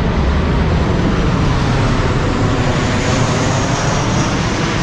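Loud, steady rumble of engine noise from street traffic, easing slightly near the end.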